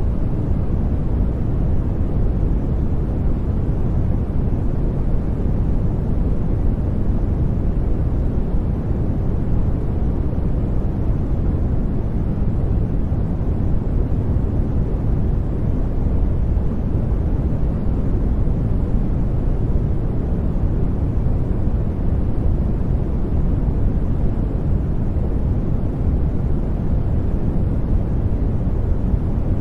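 Continuous brown noise: a steady, deep hiss with most of its weight in the low end, fading toward the highs, unchanging throughout.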